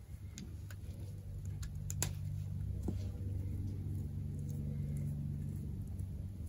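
A scatter of small sharp clicks and snips from hand tools working the end of an insulated antenna wire as it is cut and prepared for a trap, the loudest about two seconds in. Under them, a low steady drone comes in after about a second and a half and fades near the end.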